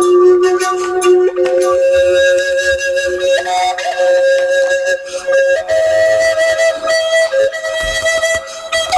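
Music: a flute-like melody of long held notes over light percussion.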